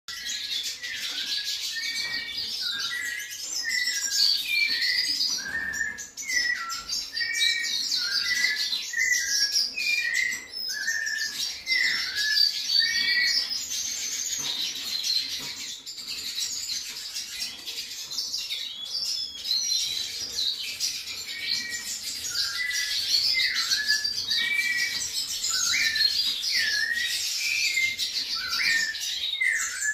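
White-necked thrush (sabiá-coleira) singing continuously: a steady run of short whistled phrases with busy, higher twittering notes above them.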